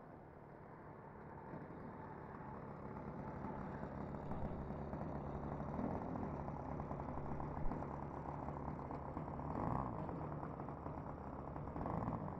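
O.S. .95 nitro engine of a Value Hobby Tiger RC airplane idling as the plane taxis in, growing louder as it comes closer. Its note rises briefly a few times, about six, ten and twelve seconds in.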